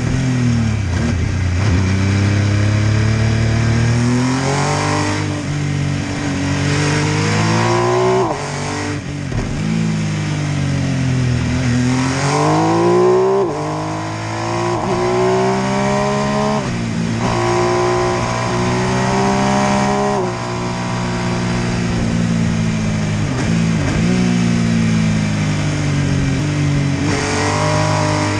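MV Agusta F3 800's inline three-cylinder engine pulling hard, its revs climbing and then dropping sharply again and again as the rider shifts gears and rolls off and back on the throttle through the bends.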